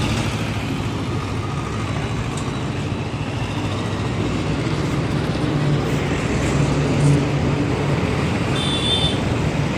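Steady road traffic noise: a low engine rumble with a constant wash of noise, and a short high tone near the end.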